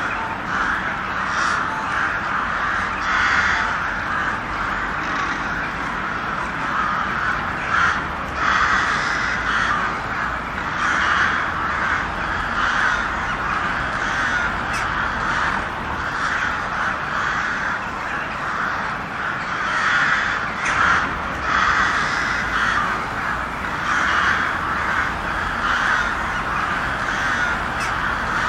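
A large group of crows cawing all at once, many calls overlapping into a continuous loud din.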